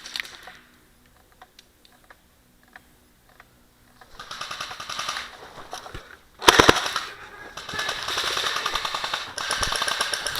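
Airsoft electric guns firing rapid full-auto bursts, starting about four seconds in and running nearly continuously after that. The loudest, closest burst comes about six and a half seconds in.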